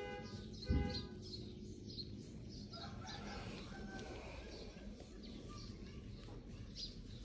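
Birds calling: a rooster-like crowing call from about three seconds in, over scattered chirps from small birds. A dull thump a little under a second in is the loudest sound.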